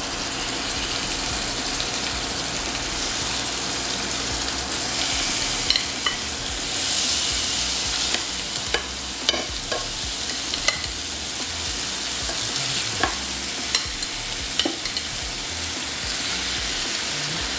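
Beef short ribs searing in hot oil in a nonstick skillet: a steady sizzle that grows brighter as more ribs go into the pan. About a dozen scattered sharp clicks from metal tongs knocking against the pan and the meat.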